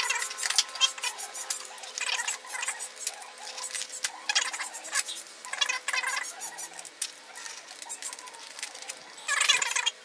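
Strips of black tape being peeled one after another off the white plastic skin of a model aircraft wing: a series of short crackling rips with brief pauses between them, the last one near the end.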